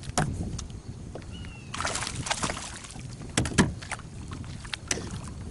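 A hooked bass splashing at the surface beside a fishing kayak as it is netted, with sharp knocks and clacks of gear against the plastic hull. The splashing comes about two seconds in and the loudest knocks about three and a half seconds in.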